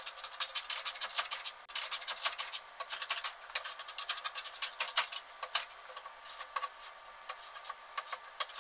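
Rapid, irregular scratchy strokes of a hand tool working wood: edges of a glued-up rosewood and maple block being tidied by hand.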